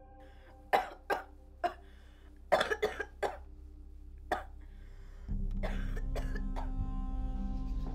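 A sick woman coughing repeatedly as she coughs up blood: a run of sharp separate coughs, with a quick cluster in the middle. About five seconds in, a low steady drone comes in.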